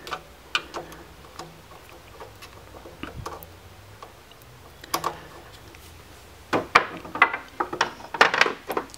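Small clicks and taps of stiff copper wires being worked into the terminals of a GFCI breaker in a metal disconnect box. The clicks are sparse at first and come in a quicker run of sharper ones over the last two seconds or so.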